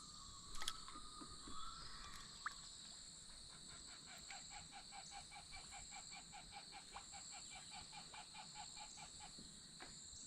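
Faint insect chorus, a steady high buzzing. From about four seconds in, a rapid, even series of short pitched pulses, about five a second, runs for some five seconds.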